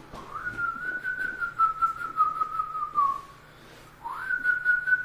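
A person whistling two long held notes, each sliding up at the start: the first holds for about three seconds and sags a little in pitch before stopping, and the second begins about four seconds in and holds steady.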